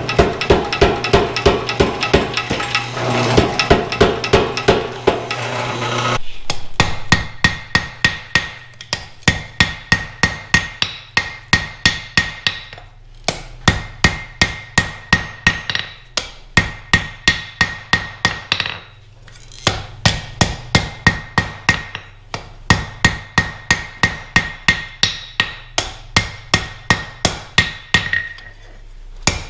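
Power hammer striking hot steel in quick, even blows, about three a second, with a few brief pauses as the work is turned in the tongs, and a high ring from the metal. A steady noise runs under the blows for the first six seconds.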